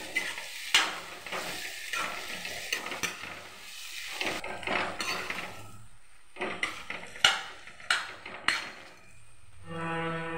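A spoon stirs and scrapes baby jackfruit pieces and spice paste in a metal frying pan, knocking against the pan irregularly, while the masala sizzles in the oil as it fries.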